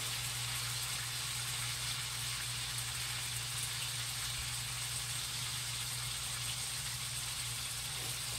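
Beef roast searing in a pan on a gas burner: a steady sizzle, with a low steady hum beneath.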